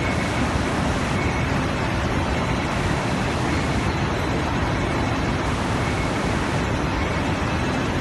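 1250 mm single-twist cabling machine for power cable running at speed behind its perforated guard, a loud, steady rushing noise with no change.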